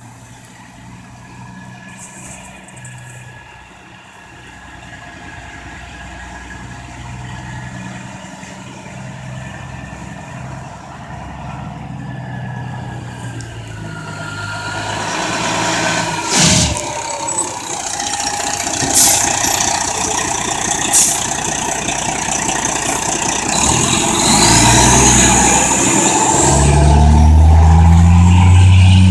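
Fire engine's diesel engine running as the truck drives slowly up the street, growing steadily louder as it comes closer. A falling tone sounds a little past halfway and a rising whine near the end.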